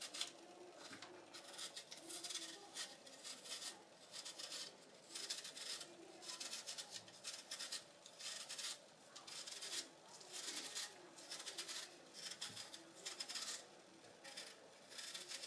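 An apple being peeled by hand: a long run of short, irregular scraping strokes as the blade cuts through the skin.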